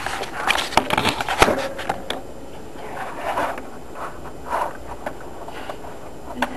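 Plastic K'nex parts of a toy bear trap clicking and knocking as it is handled and set, with several clicks in the first two seconds, then faint rustling and one more click near the end.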